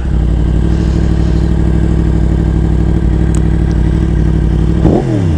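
2015 Yamaha R1's crossplane inline-four idling steadily, then revved briefly near the end, the pitch rising and falling.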